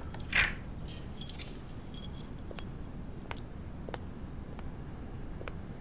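Key being worked in a brass door lock: a metallic rattle about half a second in, then a few scattered small clicks of the key and latch.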